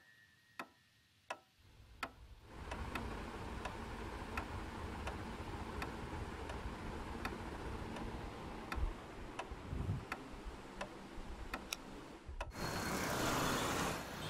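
A clock ticking steadily, a little over two ticks a second. About two and a half seconds in, a low background rumble rises under it. Near the end comes a loud rushing burst of noise lasting about a second and a half.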